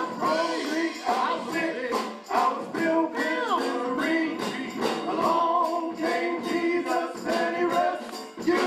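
Male vocal group singing a church song in harmony, backed by a drum kit keeping a steady beat.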